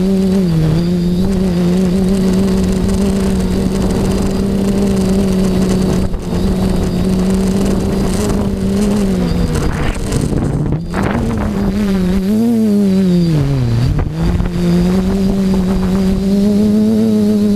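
FPV quadcopter's electric motors and propellers humming at a steady pitch, recorded on the GoPro aboard, with wind rushing over the microphone. Past the middle the pitch drops and climbs back a few times as the throttle changes.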